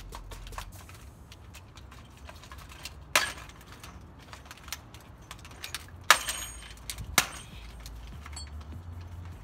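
Small metal parts and tools being handled, clinking: three sharper clanks about three, six and seven seconds in, the middle one loudest, with lighter ticks between, over a low steady rumble.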